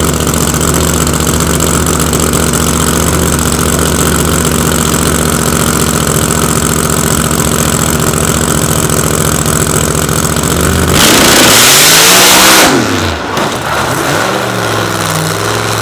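Blown, injected big-block Chevy V8 of an all-wheel-drive drag truck idling steadily, then, about eleven seconds in, launching at full throttle very loudly. After a second or two the engine note swings up and down as the truck spins around out of control, which the driver puts down to a mechanical failure, likely in the front differential.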